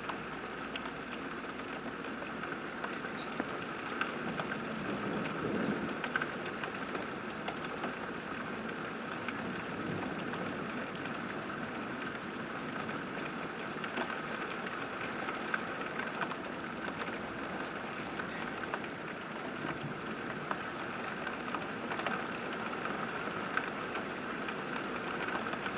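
Heavy rain pouring down, a steady hiss with many fine ticks of drops striking surfaces.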